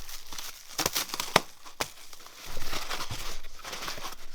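Packaging crinkling and rustling as powder-coated pedal-assembly parts are unwrapped, with three sharp clicks or knocks in the first two seconds.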